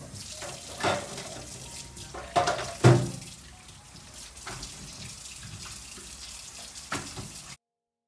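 Water running and splashing in a stainless steel kitchen sink while it is wiped with a cloth, with a few knocks against the sink, the loudest about three seconds in. The sound cuts off suddenly near the end.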